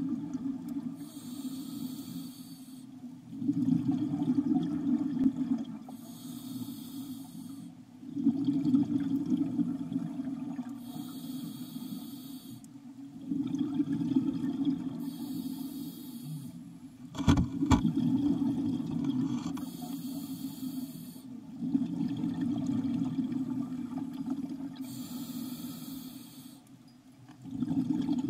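Scuba diver breathing through a regulator in a slow, even cycle, about five breaths in all. Each breath is a short hiss of inhalation followed by a longer, louder rumble of exhaled bubbles. A couple of sharp clicks come a little past the middle.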